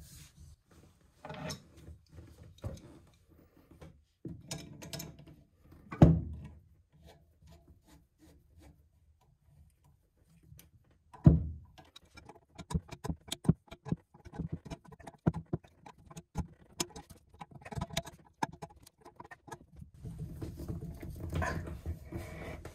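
Clicks, knocks and light clinks of hands working a chrome bidet T-valve and braided supply-line fitting under a toilet tank, with two louder thumps about six and eleven seconds in and a quick run of small clicks after that.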